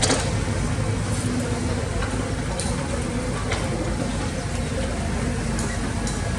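Heavy diesel earthmoving machinery running steadily, with a few short clicks or knocks.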